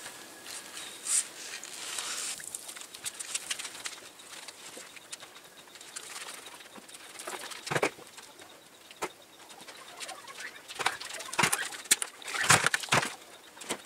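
A sponge rubbing and squelching over a soap-covered car body, as the car is scrubbed by hand: irregular rustling with scattered clicks, and a cluster of louder sharp sounds near the end.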